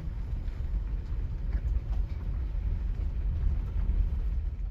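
A loud, steady low rumble with faint scattered ticks above it.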